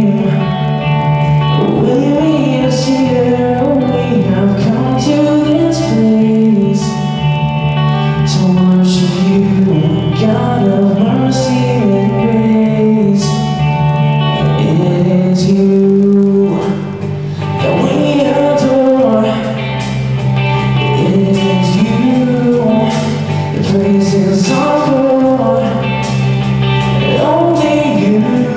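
Live band playing a worship song: a young male lead singer sings into a handheld microphone over electric and acoustic guitars and a drum kit.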